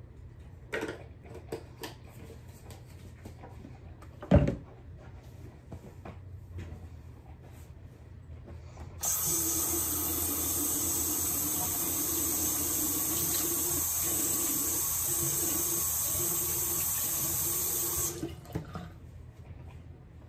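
Bathroom sink tap turned on about nine seconds in, running steadily into the basin for about nine seconds, then shut off abruptly. Before it there are a few small clicks and one sharp knock.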